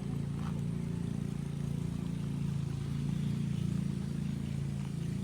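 A motor or engine running with a steady low hum.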